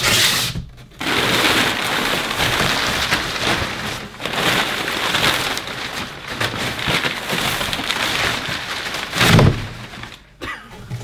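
Crumpled packing paper crackling and rustling as it is pulled out of a large cardboard box. There is a short pause about a second in and a louder bump near the end.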